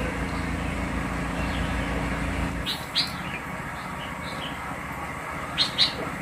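Small birds chirping in short high calls, two louder pairs, one about three seconds in and one near the end. Under them is a low steady rumble that fades away about two and a half seconds in.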